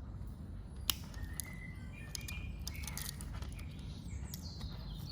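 Small birds chirping in short high calls over a steady low background rumble, with one sharp click about a second in and a few lighter clicks around three seconds in.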